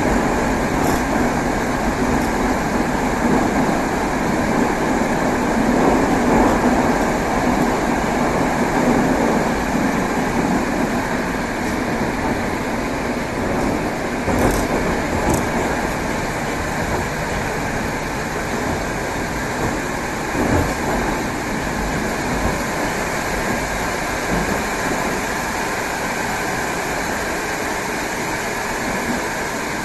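Moscow Metro 81-765 'Moskva' train running between stations, a steady rumble of wheels and running gear heard from inside the car. Two brief high squeals come about halfway.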